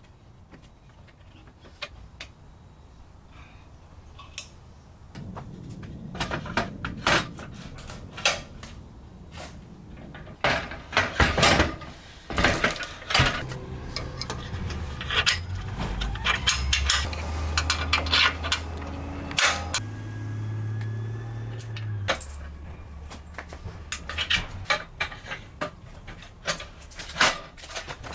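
Metal clanks, knocks and rattles of a QuikRStuff Mach 2 hitch-mounted bike rack being slid into the trailer hitch receiver and handled. There are many sharp strikes, busiest through the middle and thinning out near the end.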